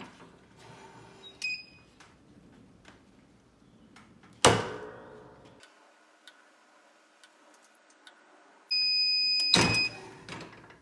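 Heat press clamping shut with a loud clunk about four and a half seconds in, then its timer beeping steadily for about a second and the press clunking open again near the end. A short beep sounds about a second and a half in.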